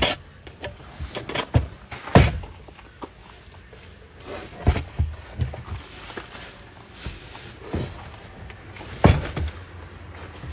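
A whiteboard knocking and bumping against the car's window and door trim as it is held up and moved about, a few separate thumps several seconds apart over a low steady rumble.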